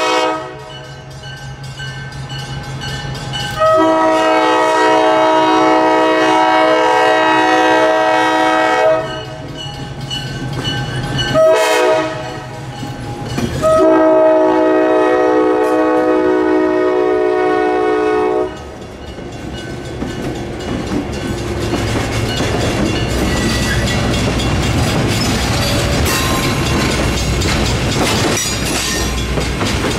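Diesel locomotive air horn sounding a chord of several notes in the grade-crossing pattern: the end of a long blast, another long blast, a short one, then a final long blast. After that the train's rumble and wheel clatter build as it draws closer.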